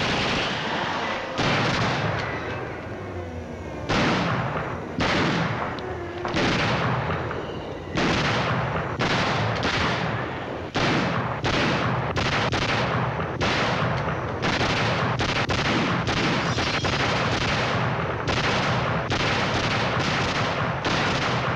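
Gunfire in a shootout: dozens of separate shots, each with a ringing echo. They come about once a second at first and turn rapid and near-continuous from about eight seconds in.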